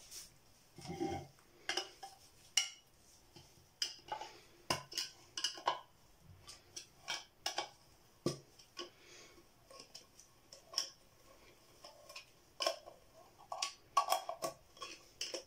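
A small metal paint tin being pried open with a screwdriver: irregular clicks and clinks of metal on metal.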